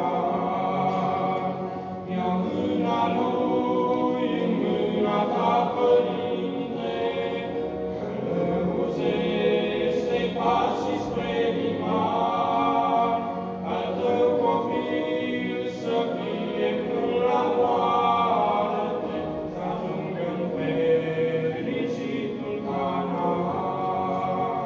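Male vocal trio singing a Romanian hymn in harmony, with accordion accompaniment, amplified through microphones. The singing runs in long held phrases with brief breaths between them.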